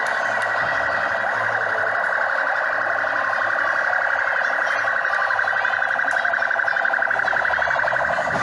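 Electronic siren sounding a continuous, fast warble.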